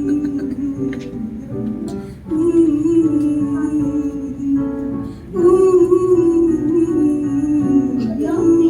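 Live song music between sung lines: long held melody notes, wavering slightly in pitch, over an accompaniment.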